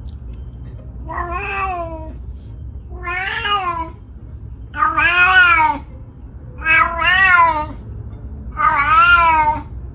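A cat meowing five times, each call long and arching up then down in pitch, about two seconds apart.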